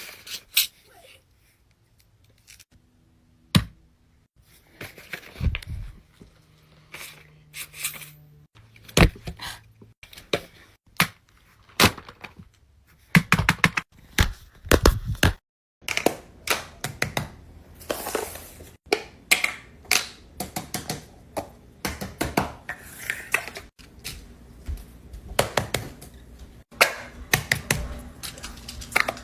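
Fidget toys being handled: an irregular run of sharp clicks and taps mixed with crinkling, rustling handling noise.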